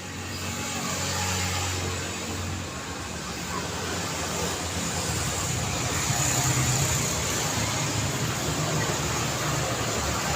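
Road traffic: a continuous wash of car engines and tyre noise, swelling about a second in and again from about four seconds as vehicles pass.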